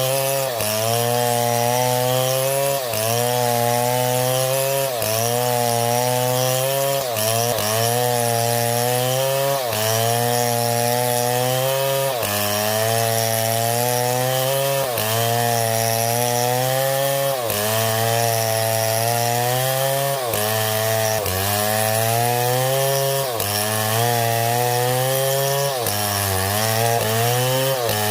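Chainsaw running at high speed while cutting wood, its engine note sagging under load and picking up again about every two seconds.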